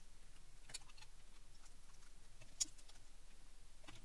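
A few light clicks and taps of a dial indicator being handled and set onto its holder, the clearest about two and a half seconds in.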